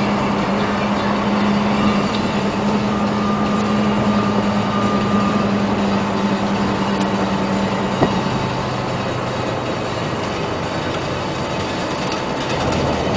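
Heavy diesel truck running steadily, its engine note dropping to a lower pitch after a single clunk about two-thirds of the way through.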